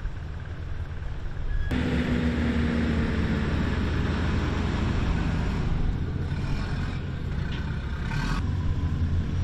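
Wheeled armoured vehicle engines running as the vehicles drive across beach sand: a steady low rumble that turns suddenly louder and fuller a little under two seconds in.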